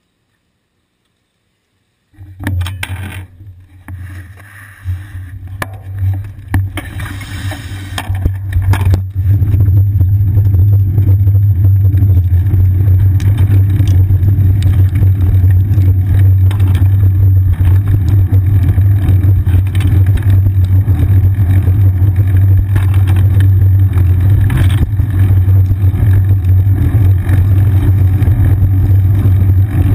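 Loud low rumble from a seat-mounted action camera on a moving bicycle: road vibration and wind on the camera housing. It starts about two seconds in, uneven with scattered knocks at first, and turns steady from about nine seconds on as the bicycle rolls along the street.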